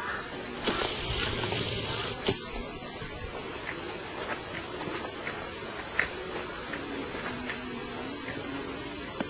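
Steady, high-pitched insect chorus buzzing without a break, with a few faint ticks in the background.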